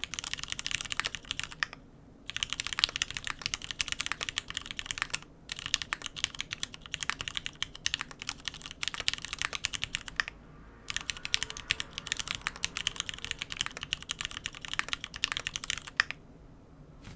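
Fast typing on a Monokei x Hand Engineering Kage custom mechanical keyboard with lubed Cherry MX Black linear switches, O-ring mounted on an aluminium plate with no foam, under GMK keycaps: dense runs of key clacks with brief pauses between bursts. The typing stops near the end.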